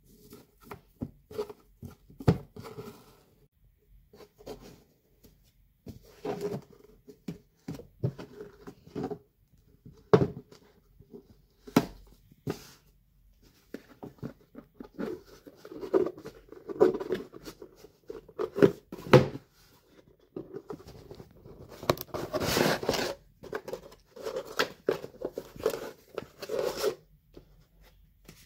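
Hands unboxing a rigid cardboard gift box: a ribbon being untied and pulled, scattered taps and knocks on the cardboard, and scraping and rustling as the drawer-style box slides open and a paper envelope is handled. The longest, loudest rustle comes about two thirds of the way through.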